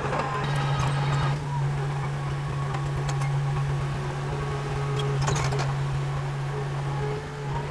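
Bulldozer's diesel engine running steadily with a constant low drone, and a short cluster of metallic clanks about five seconds in.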